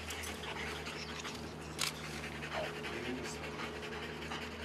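Police detection dogs panting, with one sharp click a little under two seconds in.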